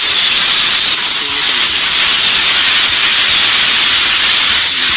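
Recorded heavy rain used as a sound effect: a steady, dense hiss with no breaks.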